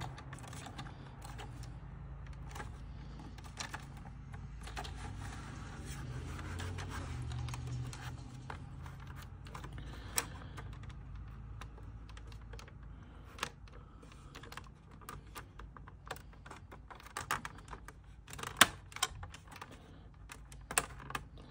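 Small plastic clicks and snaps as the two halves of a cable modem/router's plastic case are pressed together, the clips locking. The clicks are scattered at first and come faster and louder near the end, over a low steady hum.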